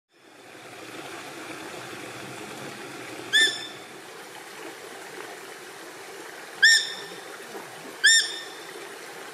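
Otter calling with three short, high, arching whistles: one about three and a half seconds in, then two near the end. Behind them is a steady rushing of water.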